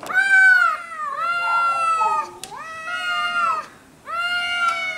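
Two domestic cats caterwauling at each other in a standoff: long, drawn-out, wavering yowls that overlap at times, the threat calls of a cat fight. The yowling breaks off briefly about three and a half seconds in, then starts up again.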